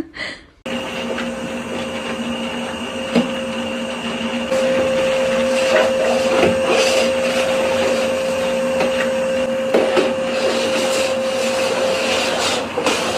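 A steady electric motor running with a hum and a high whine, like a household appliance, with a few light knocks about 3, 6.5 and 10 seconds in.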